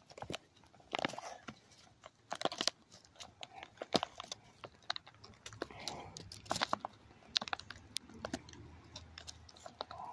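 Heavy plastic MRE pouch crinkling and crackling in the hands, with irregular sharp crackles as it is gripped and pulled at to tear it open without a knife.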